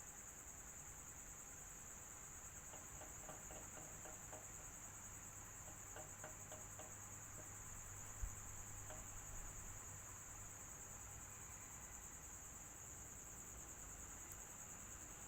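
Electric fan running steadily: a faint, even whir with a steady high-pitched whine over it, and a soft low bump about eight seconds in.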